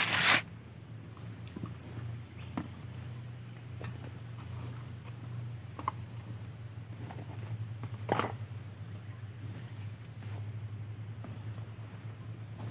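Steady high-pitched insect chorus with a low steady hum underneath, and a few soft rustles and knocks of camping gear being handled in a tent, the loudest about eight seconds in.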